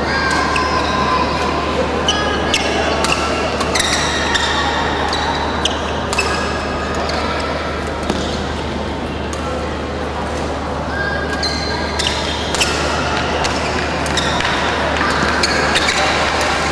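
Badminton rally: rackets sharply striking the shuttlecock back and forth at irregular intervals, with brief high squeaks of court shoes on the mat, over a steady murmur of voices and hum in a large sports hall.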